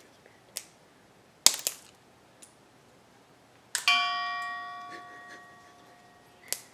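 A few sharp knocks and cracks, then one bell-like ring that fades out over about three seconds. The knocks fit dry lasagna pieces being snapped and set down.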